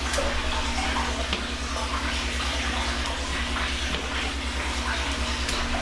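Steady hiss of kitchen background noise with a low, evenly pulsing hum, and a few faint soft taps as raw chicken tenders are set down on wax paper.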